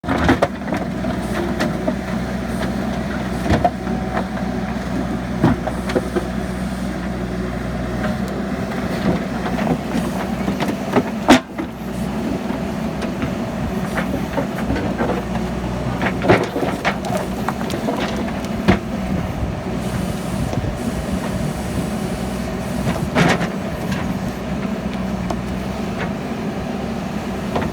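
JCB backhoe loader's diesel engine running steadily under work, with scattered clanks and knocks from the bucket and arm striking concrete. The loudest knock comes about eleven seconds in.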